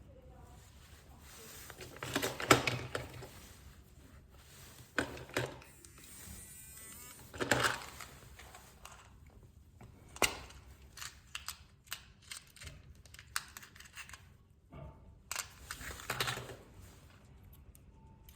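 Small clicks, scrapes and crinkling of hand tools and parts being handled while working on an iPhone XR during a battery replacement. The noises come in irregular short bursts, the loudest a few seconds in, with a run of light ticks later on.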